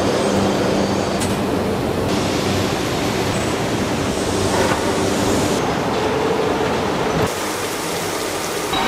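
Factory machinery noise from crankshaft production: a dense, steady clatter and hiss with a low hum. It changes abruptly several times as short clips of different machines cut from one to the next.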